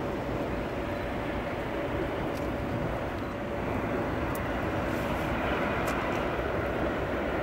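Airbus A380 jet engines running: a steady rush of jet noise with a faint steady whine, swelling slightly about four seconds in.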